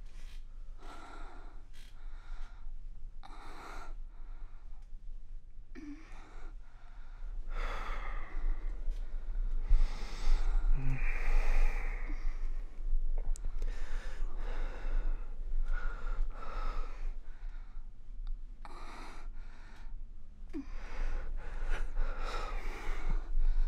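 Heavy breathing with sighs and gasps, about one breath a second, growing louder and fuller from about eight seconds in: the breathing of sexual arousal.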